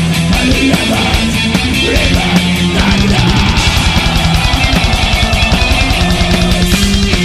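Heavy metal music in an instrumental passage, with distorted electric guitar and drums. About three seconds in, very fast, even drumming sets in.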